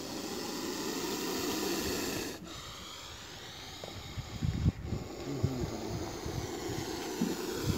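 Indian spectacled cobra, hood raised, giving a long breathy hiss that cuts off sharply a little over two seconds in. After that come irregular low rustles and bumps near the ground.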